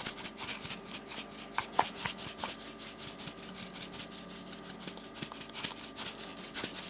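Dried herbs and salt being sprinkled by hand over a dish: fingers rubbing them and many small rapid crackles and ticks, with a few louder clicks about two seconds in.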